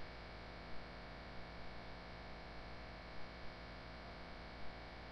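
Steady electrical mains hum with a hiss, the recording's noise floor, broken by a few faint soft taps.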